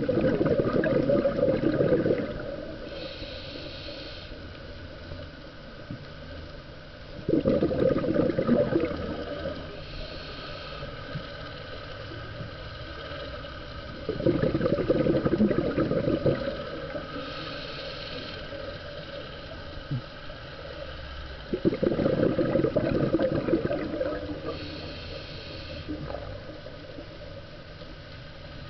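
Scuba diver breathing through a regulator: four bursts of exhaled bubbles gurgling about every seven seconds, each followed by a short, fainter hiss as the diver breathes in.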